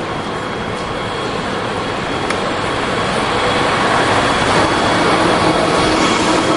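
Trolleybus approaching and passing close by: a steady electric hum with a few held tones over tyre and road noise, growing louder as it nears.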